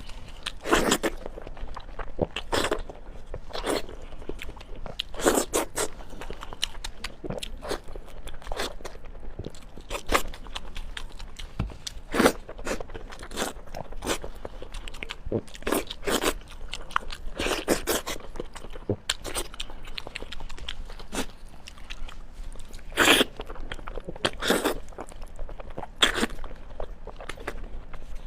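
Close-up eating sounds: a person biting and chewing food, with crunchy bites and crackling mouth noises coming at irregular intervals, a few each second.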